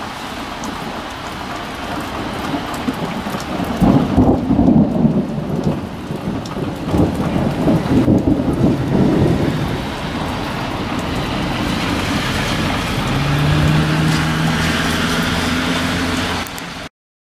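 Thunder rumbling over steady rain, the rumble loudest and most broken from about four to ten seconds in, then dying away. A steady low hum comes in near the end, and the sound cuts out briefly just before the end.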